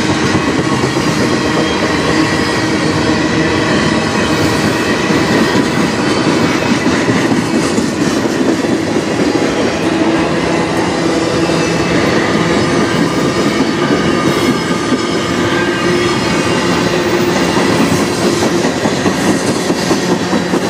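Freight cars of a long mixed manifest train rolling past close by: steel wheels running on the rails, a loud steady noise that carries on without a break, with faint ringing tones from the wheels.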